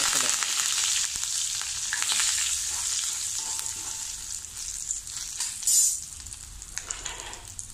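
Fresh curry leaves hitting hot tempering oil in a kadai, a sudden loud sputtering sizzle that dies down gradually over several seconds as they fry.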